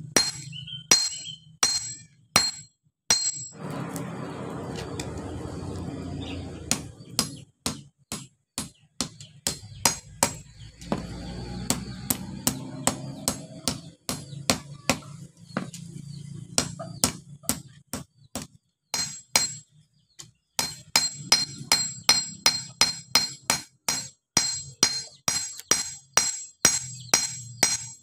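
Hand hammer striking a red-hot knife blade on a steel post anvil: a long run of sharp, ringing blows, about two to three a second, with a brief pause about two-thirds of the way through. A low hum sounds underneath in stretches.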